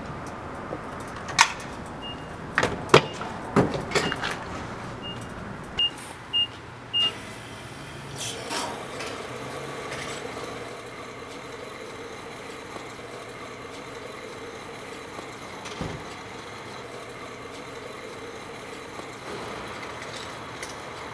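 Petrol pump at a filling station: a few sharp clunks and clicks as the fuel nozzle is handled, then a run of short high beeps from the pump, the last three loudest and evenly spaced. From about eight seconds in, the pump's motor hums steadily with a faint held tone as fuel is dispensed.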